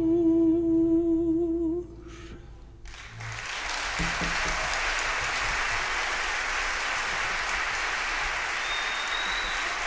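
A mezzo-soprano holds the final sung note with the string orchestra, cutting off a little under two seconds in. After a short pause the audience starts applauding about three seconds in and keeps on steadily, with a short whistle near the end.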